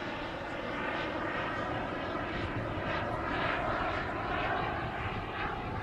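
Twin JetCat P120 gas turbines of a quarter-scale RC English Electric Lightning jet model in flight, a steady jet rush with a faint whine.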